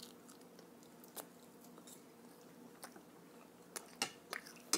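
Close-up eating sounds of French toast being chewed, with a few sharp clicks of a fork against a ceramic plate, bunched near the end.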